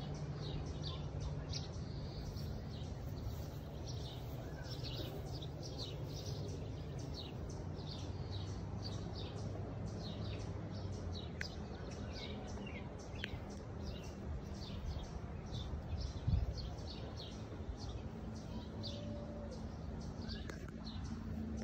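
Birds chirping over and over in short, high calls above a steady low hum, with a single thump about sixteen seconds in.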